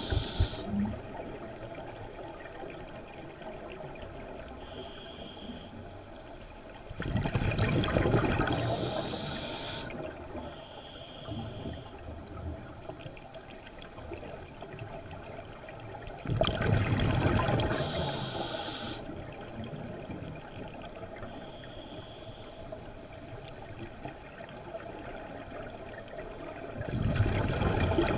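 Scuba diver breathing through a regulator underwater: exhaled bubbles gush out in three loud bursts about ten seconds apart, with fainter hissing between them.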